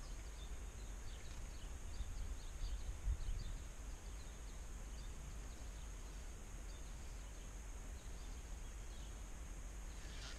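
Quiet outdoor ambience on a lake: a steady low rumble with faint, scattered high-pitched chirps, and a soft low bump about three seconds in.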